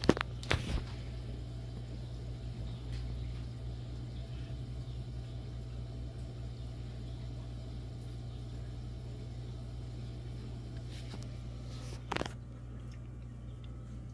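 Steady low hum of aquarium equipment such as the filter or pump, with a couple of brief knocks right at the start and another about twelve seconds in.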